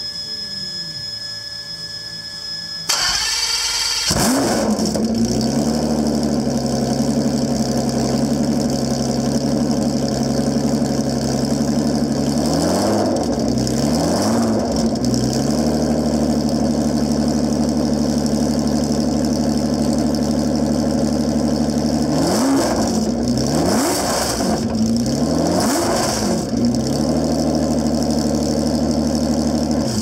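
Mercedes M120 V12 running through 12-into-4-into-1 open headers on its first start. After a steady high whine, the starter cranks about three seconds in and the engine catches within a second, then idles steadily. A few quick throttle blips come around the middle and a run of blips later on.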